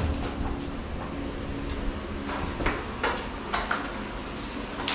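Irregular light knocks and clacks of tile-setting work, about eight in the few seconds, over a steady low hum that stops about a second in.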